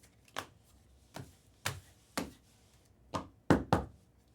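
About seven sharp taps and knocks at irregular intervals, the two loudest close together a little past halfway. These are cards and card holders being tapped and set down on a tabletop.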